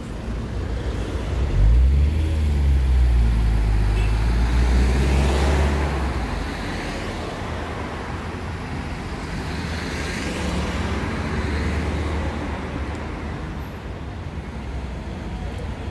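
Street traffic: motor vehicles passing on the road. The loudest pass, with a deep engine rumble, comes a couple of seconds in and fades after about four seconds, and another vehicle passes about ten seconds in.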